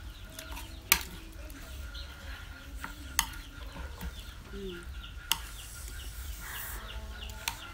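A metal spoon scooping and stirring spicy sauce on a serving tray of pickled chicken feet, clinking sharply against the tray four times, loudest about a second in.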